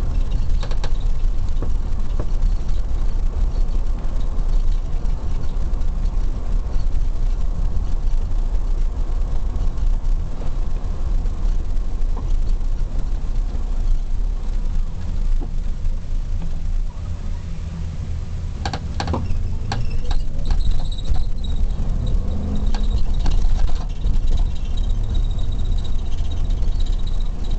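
Police car running: a steady low engine and road rumble, with a few sharp clicks or knocks about two-thirds of the way through.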